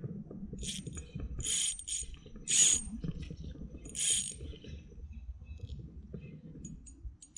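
Small ultralight spinning reel being cranked to retrieve a lure, its gears giving a steady low whirring rattle, with four short high hissing bursts in the first half.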